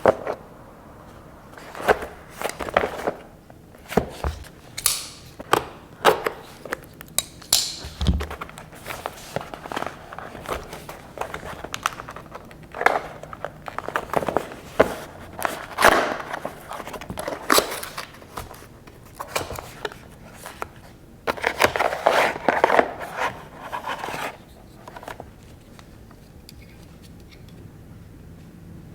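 Cardboard and plastic product packaging being handled and opened: a long series of taps, clicks and scrapes, with a longer stretch of rustling about three-quarters through.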